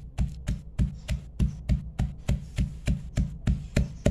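Pestle pounding in a clay mortar, steady rhythmic thuds at about three strokes a second, working garlic, shallots, chili and shrimp paste into a chili paste.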